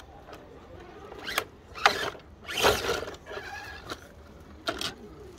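RC rock crawler driven in short bursts over rough ground: its motor and gears rasp four times, the longest burst near the middle lasting about half a second.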